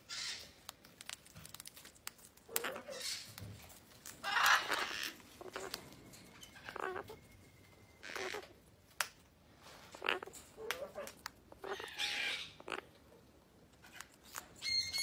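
Cockatoo giving short, scratchy, raspy calls in irregular bursts every second or two.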